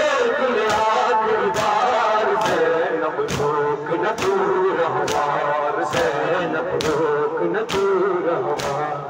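Noha chanted by men's voices over microphones, with a crowd's matam: sharp chest-beating slaps struck in unison, about one a second, keeping the rhythm of the lament.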